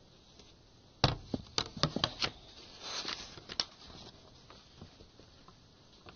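Objects handled close to the microphone: a quick run of sharp knocks and clicks starting about a second in, with a short rustle in the middle, then a few faint ticks.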